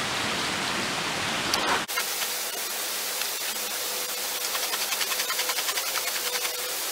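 A steady rushing hiss, with soft crackling rubs of a deer hide being worked by hand to soften it as it dries. The hiss thins and grows lighter about two seconds in, and the rubbing comes in quick, light pulses after that.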